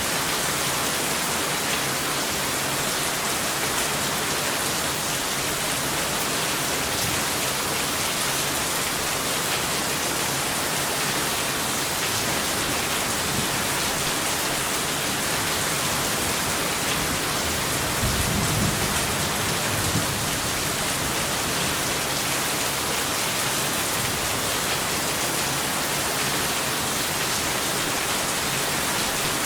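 Steady heavy rainfall, an even hiss, with a short low rumble of thunder about two-thirds of the way through.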